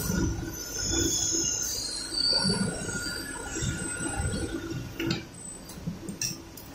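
Manual pallet strapping tensioner being worked by its lever, with metallic squeaks, scrapes and rattles from the tool and the strap as it is drawn tight. Two sharp clicks come near the end.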